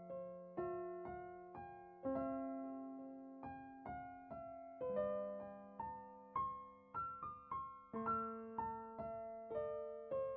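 Background music: a gentle solo piano melody, single notes struck about twice a second and each fading away, over held lower notes.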